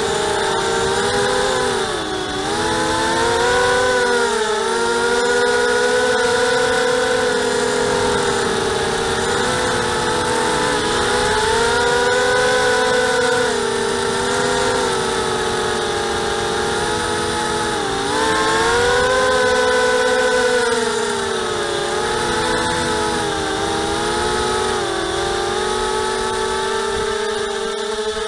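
ZMR250 racing quadcopter's four Cobra 2204 1960kv brushless motors and Gemfan 5030 propellers whining in flight, heard close from the quad's onboard camera. The pitch dips sharply several times and climbs back as the throttle is eased off and opened again.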